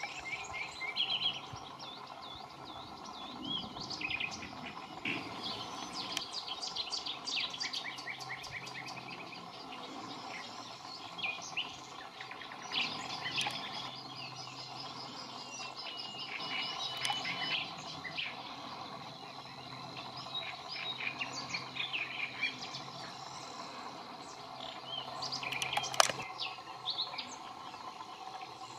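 A mixed chorus of wild birds singing and calling, with high chirps and fast chattering trills overlapping throughout. A single sharp click stands out near the end.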